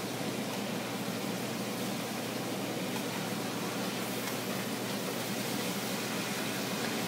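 A steady, even hiss of veal chops frying in butter and oil in a large pan on a gas range, blended with the kitchen's running air.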